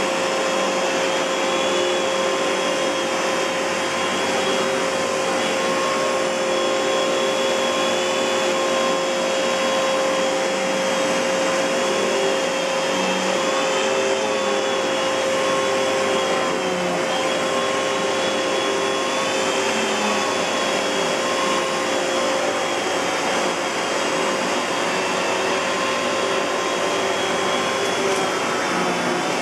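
Kenmore Progressive canister vacuum with a SIP Cinderson blower motor running steadily. A constant whine sits over the rush of air, and the higher tones waver slightly now and then.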